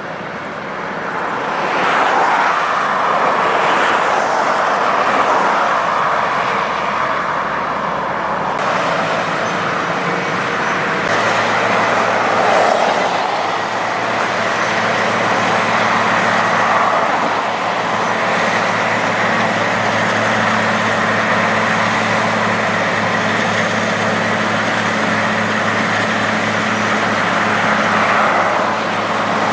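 Cold milling machine's heavy diesel engine and cutting drum running steadily as it grinds up asphalt pavement. The tone changes abruptly about nine and eleven seconds in.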